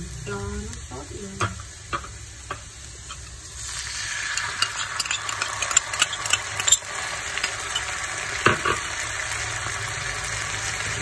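Food sizzling in a frying pan, with a utensil clicking and scraping against the pan as it is stirred; the sizzle grows louder about four seconds in, with a run of sharp clicks.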